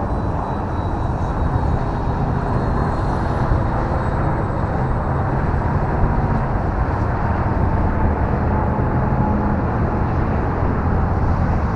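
Electric RC model plane, a Carbon Cub S2, flying overhead: a faint, steady motor-and-propeller whine that slowly drifts in pitch, under a heavy low rumble of wind on the microphone.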